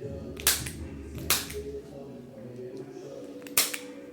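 Three sharp clicks from a chiropractic adjustment, about half a second in, again under a second later, and once more near the end.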